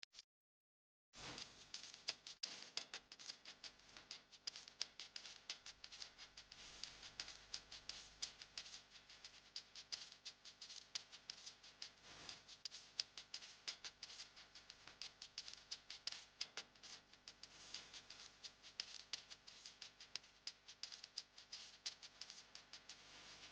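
Faint eating sounds starting about a second in: a dense, continuous crackle of small clicks from chewing and handling a seafood meal.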